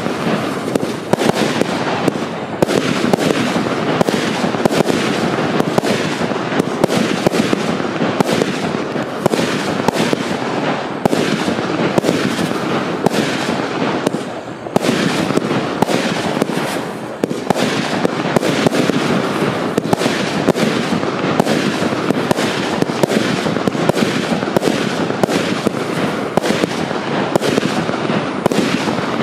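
Wolff 'The Throne' 346-shot double fan-shaped fireworks compound firing a fast, continuous barrage of shots. The volley thins briefly about halfway through, then picks up again.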